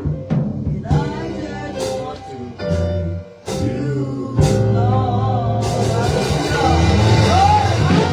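Gospel praise music: a band with drums and sustained held chords, growing fuller about four and a half seconds in, with a wordless singing voice rising over it in the second half.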